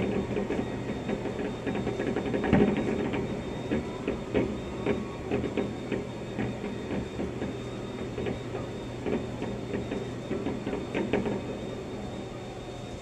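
Fireworks bursting and crackling, heard muffled through an office window as a rapid, irregular run of pops and bangs, the loudest about two and a half seconds in, over a steady low hum.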